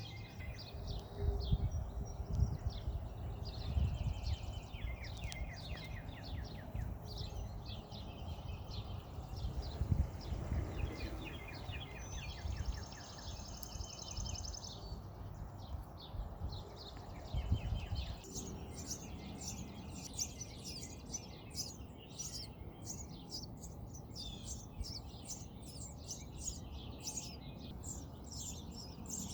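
Small birds chirping, short high chirps throughout that become a rapid, dense stream in the second half, over a low rumbling noise in the first half.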